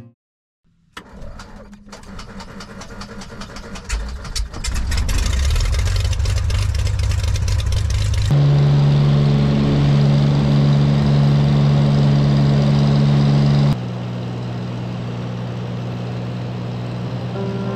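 Single-engine light aircraft's piston engine being started about a second in, with a quick run of even clicks as the propeller turns over, then picking up. From about eight seconds there is a loud, even engine-and-propeller drone heard inside the cabin, which drops to a lower steady drone about fourteen seconds in.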